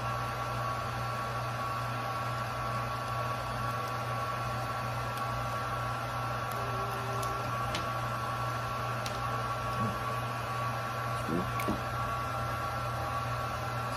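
Steady whirring of a small electric blower motor, with a low hum and two fixed high tones. A few faint light clicks of plastic parts being handled come in the middle.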